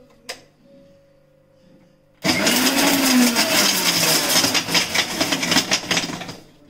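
Electric mixer grinder switched on about two seconds in: the motor spins up and runs loudly for about four seconds, grinding in one short run, then winds down near the end.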